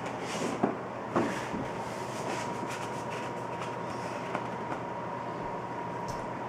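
A large painting on stiff mat board being handled and lifted: two sharp knocks, one at about half a second and one at about a second in, and lighter board scrapes and rustles after them. Under it runs a steady hiss with a faint thin high tone.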